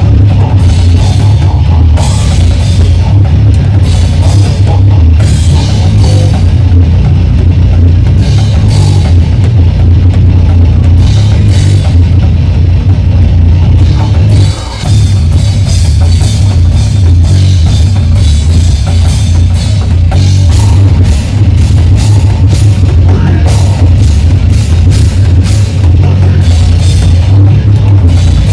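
Live death metal band playing at full volume, the drum kit close and prominent with rapid snare and cymbal hits over a heavy, bass-laden mix. The music cuts out for a split second about halfway through, then crashes back in.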